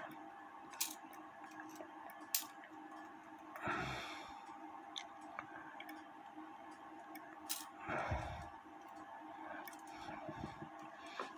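Faint, scattered clicks of small metal parts being handled on an antique cuckoo clock movement, three sharp ones in all, with two soft breathy puffs about four and eight seconds in, over a low steady hum.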